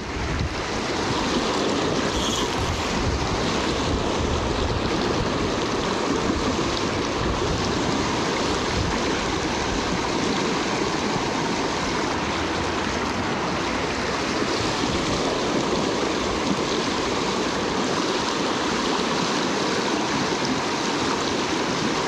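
River riffle: fast water rushing and splashing over rocks, a steady, even rush throughout.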